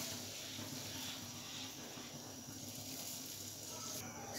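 Whole plums boiling in water in a pan, a steady bubbling hiss, as a cup of sugar is poured in a stream into the boiling liquid.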